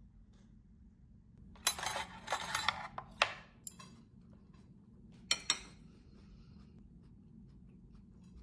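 Tableware clinking: metal chopsticks and dishes knocking together. A clattering run of clinks lasts about a second and a half, then come a few single sharp clicks, two of them close together near the middle.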